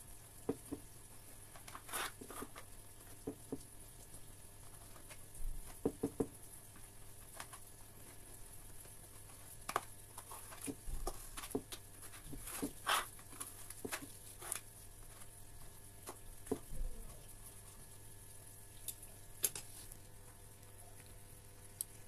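A knife cutting through a crisp, crumbly baked cake in a metal tin: scattered crunches and scrapes in short bunches, over a faint steady hum.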